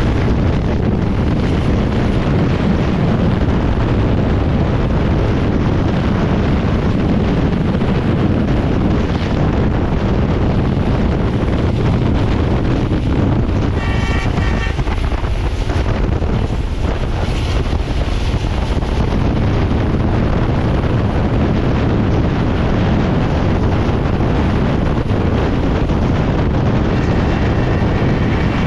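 Express passenger train running at high speed: a steady, loud rumble of wheels on rail mixed with wind buffeting the microphone. A short, high tone sounds briefly about halfway through and again near the end.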